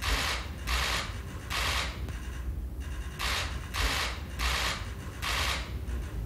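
Camera shutters firing in rapid bursts for a posed group photo: about seven short rattles of clicks, roughly a second apart, with a pause midway.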